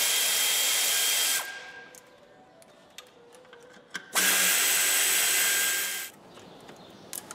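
A handheld power tool, of the drill-driver kind, spinning in two steady runs with a high whine: the first stops about a second and a half in, the second starts about four seconds in and lasts about two seconds. It is undoing fasteners on a car engine, with faint metal clicks between the runs.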